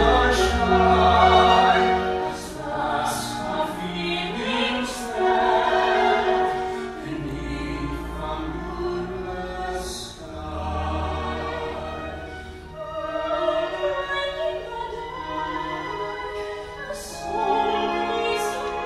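Operatic musical-theatre singing with full orchestral accompaniment, one of the sung passages of a love duet.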